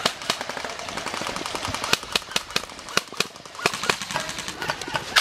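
Airsoft guns firing: rapid runs of sharp clicking shots of automatic fire, mixed with scattered single shots.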